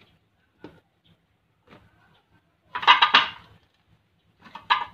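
Hard objects clattering and rattling as they are handled: a few faint clicks, then a loud clatter lasting about a second near the middle and a shorter one near the end.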